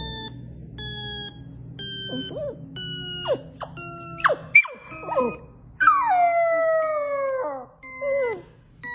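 A string of short electronic beeps at set pitches, roughly two a second, with a dog's whining cries falling in pitch over them. The longest whine is drawn out for about a second and a half, about six seconds in.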